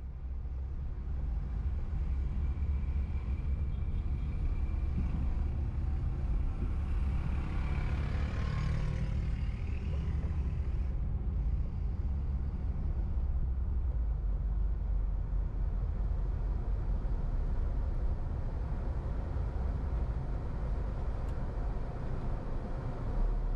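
Car being driven through city streets: a steady low rumble of engine and road noise. Around eight seconds in, a louder hiss swells and fades.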